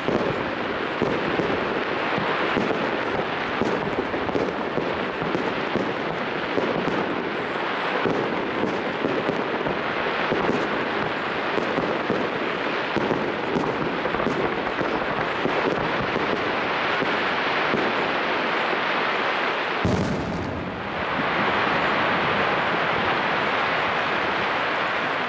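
Aerial fireworks display: a dense, continuous crackle of bursting shells with scattered bangs. There is one sharp bang about twenty seconds in, after which the noise turns smoother and a little louder.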